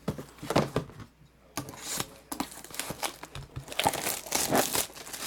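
Plastic shrink wrap being torn and crumpled off a sealed trading-card hobby box, in irregular crinkling bursts with short pauses between them.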